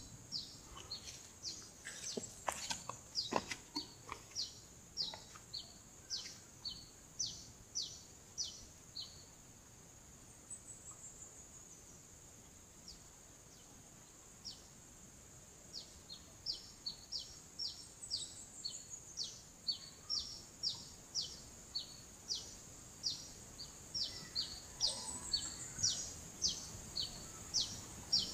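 A bird calling over and over in short, high notes, about two a second, falling quiet for a few seconds in the middle and then picking up again, over a steady high-pitched drone.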